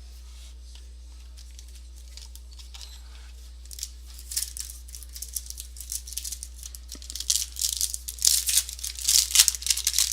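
Foil wrapper of a football trading-card pack crinkling and being torn open, with the cards handled. It starts about four seconds in and gets busier and louder in the second half, over a steady low hum.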